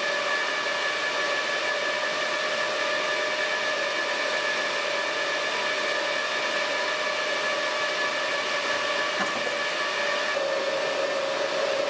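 Server cooling fans running at high speed: a steady, loud whoosh with a steady whine over it. The whine shifts slightly in pitch about ten seconds in.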